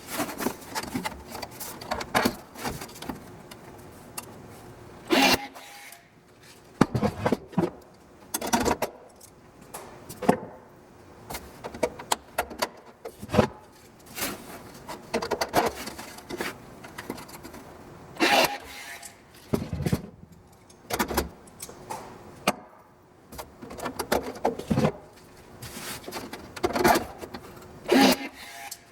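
Irregular sharp metallic clicks and clatter from riveting the aluminium top wing skin, with short gaps between strokes.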